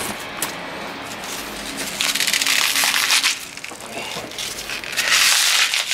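Bunch of fresh asparagus being handled and broken, giving two bursts of crunching and crackling: one about two seconds in and one near the end as it goes into the crock pot.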